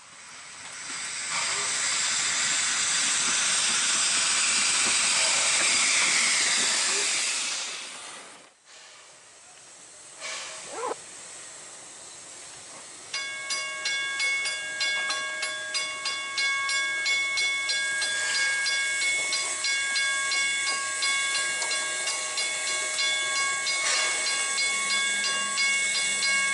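Ex-Victorian Railways NA class 2ft 6in gauge steam tank locomotive: a loud steady hiss of blowing steam for the first eight or so seconds, then after a short lull the engine working away with a steady, regular beat of exhaust, with several steady high ringing tones over it.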